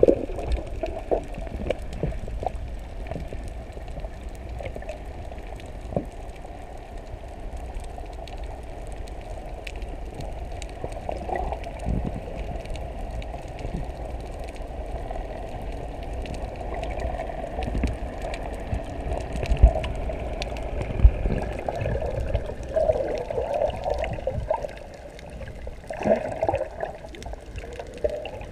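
Muffled water noise as heard by a camera held underwater: a steady rushing and sloshing, with scattered short knocks and a few louder splashy moments in the second half.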